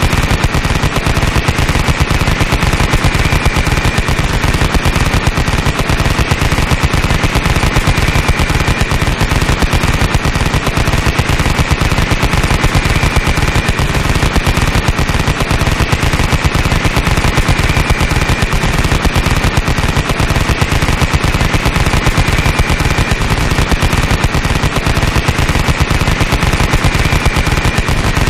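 Machine gun firing full-auto without a pause, a fast unbroken stream of shots.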